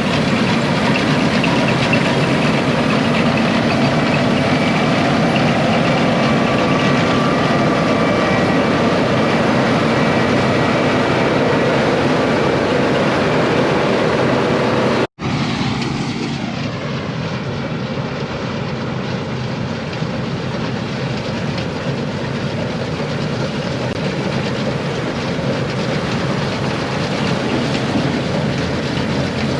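Combine harvester running steadily in the field, a dense machine rumble with faint steady whines. About halfway the sound drops out for an instant, then resumes slightly quieter and duller.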